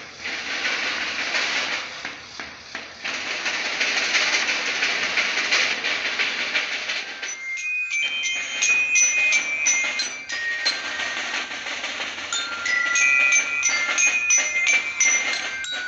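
A dense rushing noise fills the first half and breaks off abruptly about halfway. Then a school marching band's bell lyres play a melody of short, bright, high notes.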